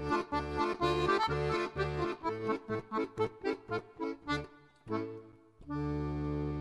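Instrumental background music: short chords over bass notes on a quick, even beat, about four a second, that die away about five seconds in. A new held chord starts near the end.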